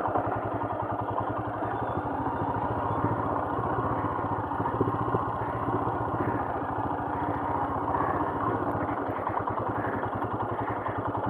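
Royal Enfield Himalayan's single-cylinder engine running steadily as the motorcycle rides along, its firing pulses even and regular.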